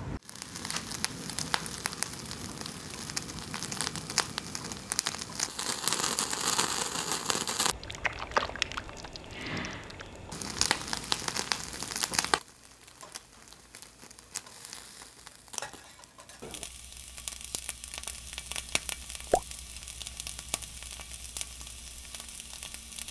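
Dense crackling and sizzling of food cooking. About halfway through it cuts to a quieter crackle of chicken skewers sizzling over a hot grill, with a low steady hum underneath in the last part.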